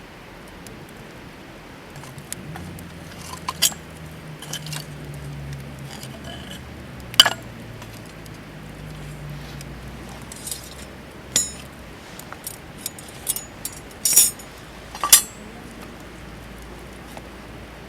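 Scattered clinks and knocks of camp cookware and utensils being handled, a dozen or so separate strikes, the sharpest about 7 s in and twice near 14–15 s. A faint low hum sounds under the first half.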